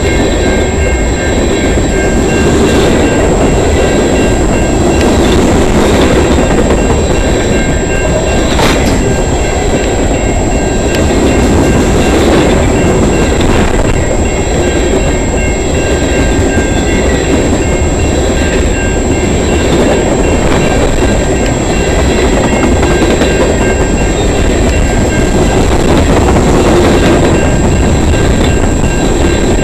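Long freight train of tank cars and gondolas rolling past at a level crossing: a steady rumble of wheels on rail with scattered clicks as wheels cross the rail joints. A crossing bell rings over it in steady high tones.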